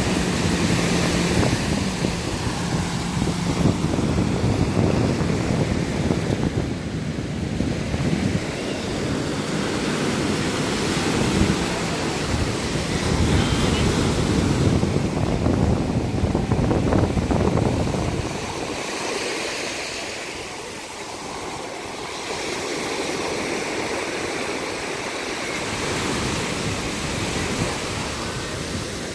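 Small surf breaking and washing up over a sandy beach, with wind buffeting the microphone. The deep rumble drops away about eighteen seconds in, leaving a lighter wash of water.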